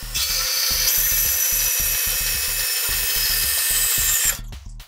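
Metal-cutting band saw blade sawing through a steel workpiece: a loud, steady, high-pitched cutting noise with ringing tones, starting just after the start and stopping abruptly about four seconds in. Background music with a steady beat runs underneath.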